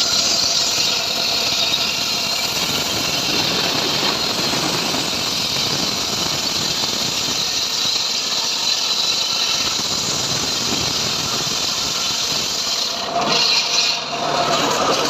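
Homemade engine-driven sawmill blade ripping through a sengon log: a loud, steady cutting noise, with a short shift to a higher squeal about thirteen seconds in.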